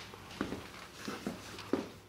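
A few light taps and knocks, about four in two seconds, as the book and papers are handled, over a faint steady hum.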